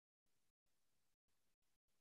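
Near silence: faint hiss that cuts in and out every fraction of a second.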